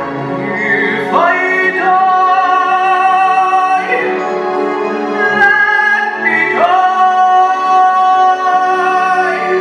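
Music with a singing voice holding long notes, each sliding up into its pitch; the note changes three times.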